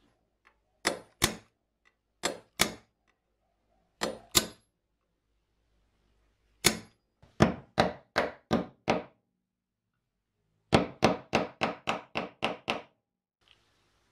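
Sharp tapping strikes on metal grinder parts during reassembly. There are three pairs of taps, then a run of about six, then a faster run of about nine, each with a short ring.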